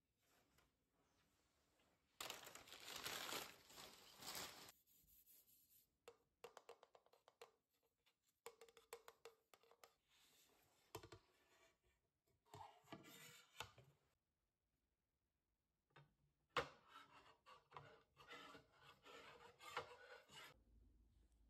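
Faint handling noise of lightweight tableware: scratchy rubbing and light clicks and knocks as plates and a cup are picked up, turned and set down on a countertop, with a longer stretch of rubbing about two seconds in and another near the end.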